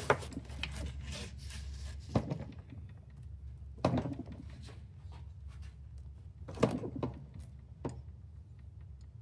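A handful of separate knocks and clunks, spread out, as a Kohler K301 12 hp cast-iron single-cylinder engine with a catastrophic internal failure is turned and shifted by hand on a wooden workbench, with a low steady hum underneath.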